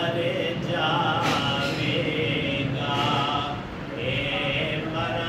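A man's voice chanting in long, drawn-out notes that rise and fall in pitch, with a short breath pause about four seconds in.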